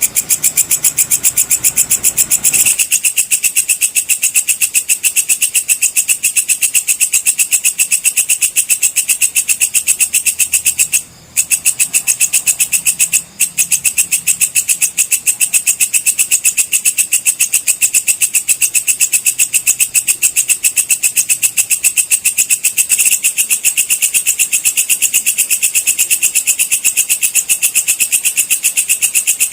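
Walang kecek (belalang kecek) insect calling: a loud, high-pitched, rapidly pulsing trill that runs on steadily, with two short breaks about eleven and thirteen seconds in.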